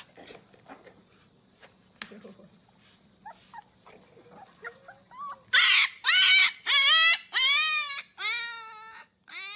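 Husky puppy howling: a run of short pitched cries, each rising then dropping in pitch. They start faint, turn loud about halfway in, and trail off near the end.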